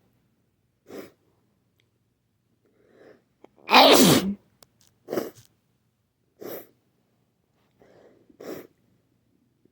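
A person sneezing repeatedly. One loud sneeze comes about four seconds in, after a short build-up breath, and several shorter, quieter sneezes or sniffs follow at intervals of a second or so.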